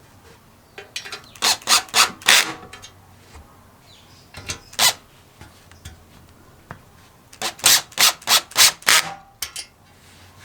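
Quick hand rubbing strokes on a restored stove part: two runs of about five strokes each, roughly three a second, with a single stroke between them.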